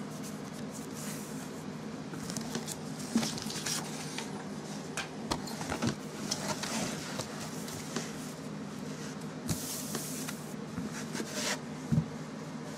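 Paper and a book being handled: a card and the book's cover rustling and sliding under the fingers in short bursts, with a few light knocks, the sharpest about three seconds in and near the end, over a steady low hum.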